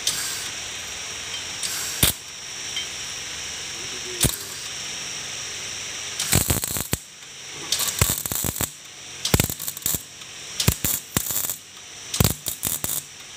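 Stick (arc) welding on a motorcycle handlebar tube: the arc crackles in short, irregular bursts from about six seconds in, as the electrode is struck and run in brief tacks. A couple of single sharp clicks come before the welding starts.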